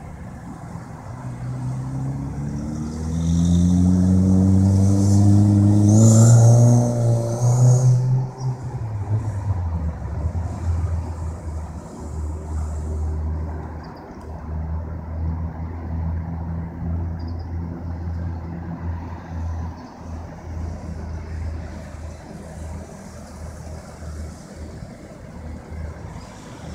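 Road traffic: one vehicle's engine climbs steadily in pitch as it accelerates, loudest about six seconds in, then fades into a steady low engine drone as other cars pass.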